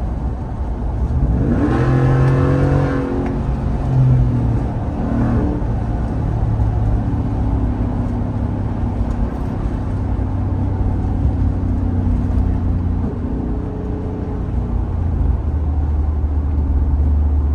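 Ford F-150 Tremor's 5.0 L Coyote V8 running through an open exhaust cutout (straight exhaust), revving up about a second in, then pulling steadily at cruising speed.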